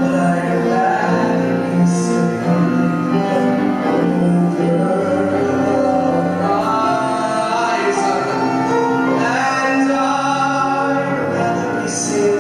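A male voice singing a song with instrumental accompaniment, played back from an old video recording.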